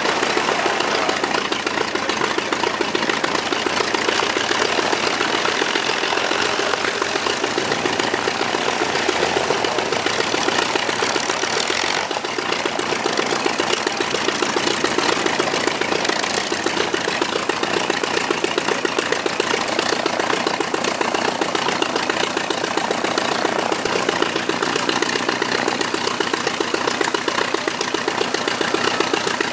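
Vintage de Havilland biplane piston engines idling while the aircraft taxi, a steady, fast, even chugging of engine and propeller. About twelve seconds in it changes to a second biplane taxiing toward the listener.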